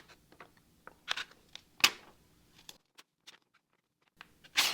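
Cheap 3Cr13 stainless folding knife blade pushed through paper, making a few short tearing, crunching scrapes rather than a clean slice: the edge is very dull.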